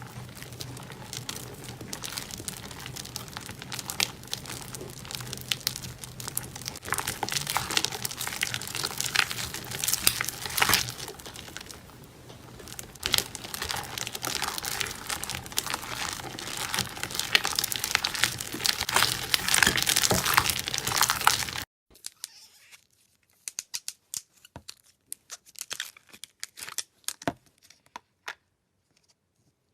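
Slime being squeezed and worked by hand, making a dense, continuous run of crinkly crackles and pops. About two thirds of the way through it cuts abruptly to a much quieter stretch of scattered clicks and pops.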